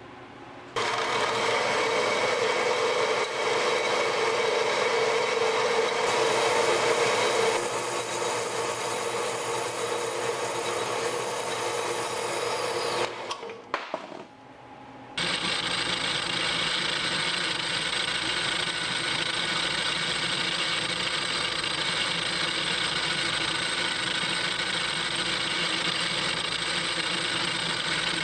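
Bandsaw cutting a slice off 3-inch round bar stock, a steady saw noise for about twelve seconds. After a short break, a lathe runs steadily while facing the cut slice.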